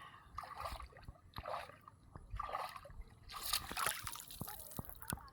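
Water splashing and sloshing in a run of short bursts, about one a second, with a few sharp clicks between them; the last and loudest comes near the end.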